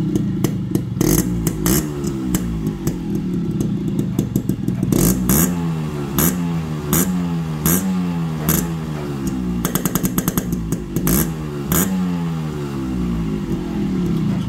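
Yamaha RX135 two-stroke single-cylinder motorcycle engine running with repeated quick throttle blips, its beat rising and falling again and again, with sharp cracks between the revs.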